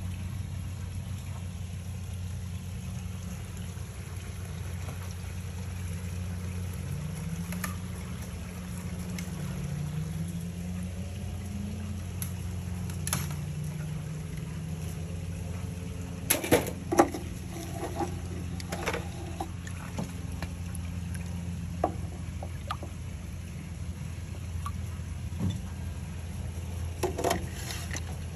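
A steady low mechanical hum, with a faint tone wavering up and down for a few seconds and a few short sharp clicks, a cluster about two-thirds in and another near the end.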